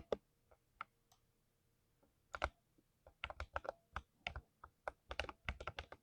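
Typing on a mechanical keyboard with lubed switches: scattered keystrokes at first, then quick runs of key presses from about halfway through.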